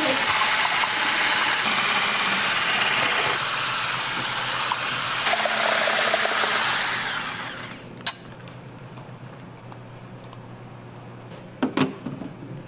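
Electric ice-shaving machine running and shaving ice with a loud, steady rasp that dies away about seven seconds in. A click follows, then a few knocks near the end.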